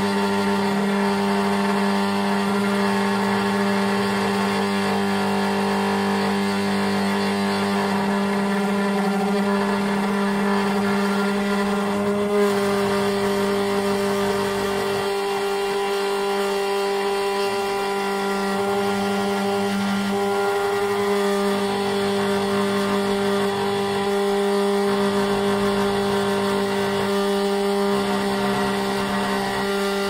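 SEC-E9 automatic key cutting machine's spindle motor running steadily while its cutter mills the first side of a car key blade, a constant motor hum with metal-cutting noise over it.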